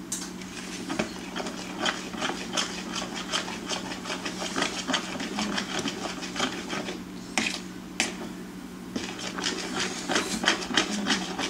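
Irregular clicking and tapping of a utensil against a mixing bowl, a few taps a second, as cake batter is stirred by hand.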